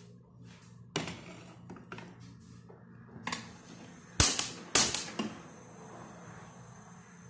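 Long gun-style utility lighter clicked several times, unevenly, to light a gas stove burner. The loudest clicks come about four and five seconds in.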